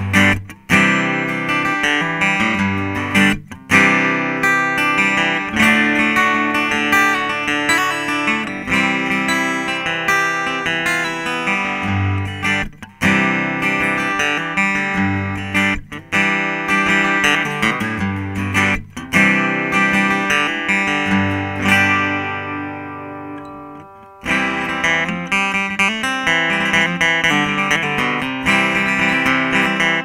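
Framus 5/196 Texan dreadnought acoustic guitar played through its Journey EP001K transducer pickup, strumming and picking chords. About two-thirds of the way through, a chord is left to ring and fade before the playing resumes.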